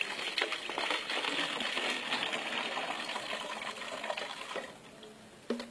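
Water poured from a small plastic bottle through a funnel into a large plastic soft-drink bottle, running steadily and then stopping about four and a half seconds in.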